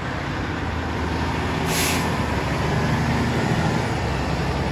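A large truck's engine running steadily close by, with a short hiss about two seconds in.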